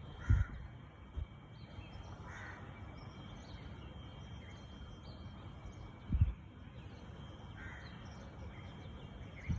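Birds calling at sunrise: a few harsh calls, near the start, about two seconds in and near the end, over faint high chirping from small birds. Three or four brief low thumps on the microphone are the loudest sounds.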